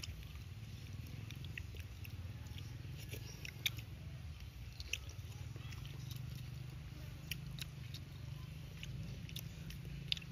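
A person chewing and smacking lips while eating tilapia with his fingers, with scattered sharp wet clicks over a low steady hum.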